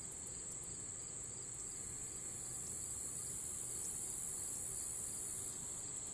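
Insect chorus of crickets: a steady, high-pitched shrill with no breaks.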